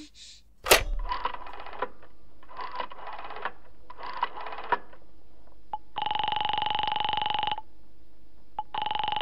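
Telephone sound effects: a sharp clack as the receiver is lifted, then the dial turned in three short runs, then a ringing tone heard over the line twice, each about a second and a half long, while the call to the operator goes unanswered.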